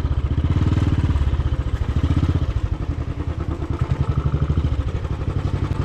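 A vehicle engine running with an even, fast low pulse.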